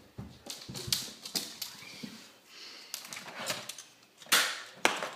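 Nerf dart blasters being handled and fired: a string of sharp plastic clicks and knocks, with one louder, longer burst about four seconds in.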